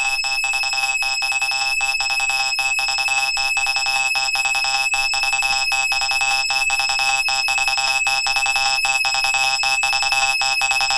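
Hard house music in a breakdown: a high-pitched electronic synth pulsing rapidly over a steady piercing tone, with the kick drum and bass dropped out.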